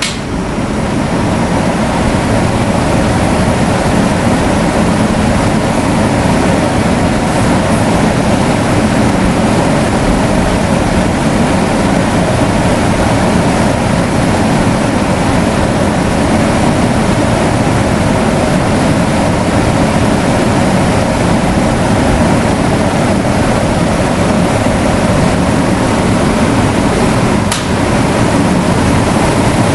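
Electric fan running loudly as a steady whoosh of moving air. There is a click at the very start, and the sound dips and then builds back up over the next couple of seconds, as when the fan's speed is switched. A brief click follows near the end.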